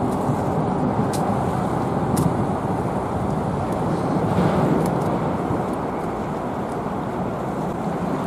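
Steady rushing of choppy sea water washing over a low concrete breakwater, mixed with wind buffeting the microphone.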